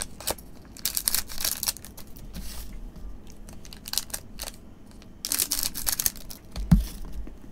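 Shiny plastic wrappers of 2023 Topps Japan Edition baseball card packs crinkling in the hands and being snipped open with scissors, in irregular bursts of crackle. A single dull thump near the end is the loudest sound.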